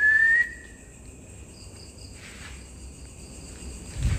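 A brief high whistle-like tone, rising slightly in pitch, lasts about half a second at the start. Faint insect chirping follows, and low handling or rustling noise comes in near the end.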